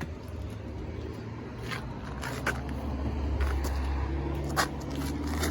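Low, steady vehicle engine hum, with a few light metallic clicks from the tyre-change tools.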